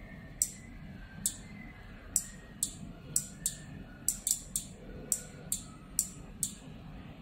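Small 5 V relay module clicking as it switches, about fourteen sharp clicks at an irregular pace of roughly two a second, over a faint steady hum.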